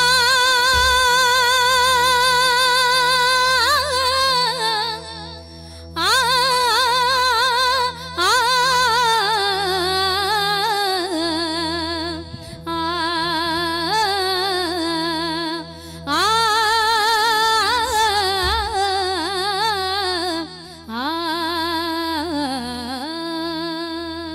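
A woman singing a Tamil folk song in long, drawn-out phrases with a strong wavering vibrato, about five phrases with short breaks between them, over a steady held keyboard drone.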